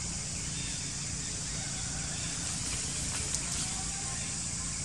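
Steady outdoor background noise: a high hiss with a low rumble underneath, and a single click a little over three seconds in.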